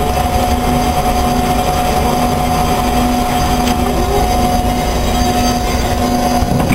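Amada HFA 400 CNC horizontal band saw running, a steady whine with a lower hum over machine noise as its saw head feeds down.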